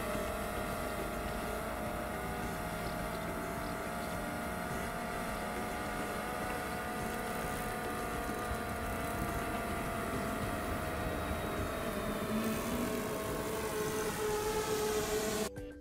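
DJI Mavic Air 2 quadcopter's motors and propellers whining steadily in flight, with its left front motor newly replaced; several tones drift slightly in pitch. It cuts off suddenly near the end.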